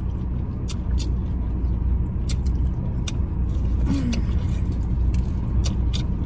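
Steady low rumble of a car engine idling, heard from inside the cabin, with scattered sharp clicks of chewing and biting into corn on the cob close to the microphone.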